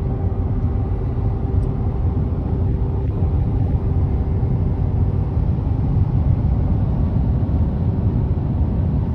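Wind buffeting the microphone: a loud, steady low rumble with a faint steady hum above it.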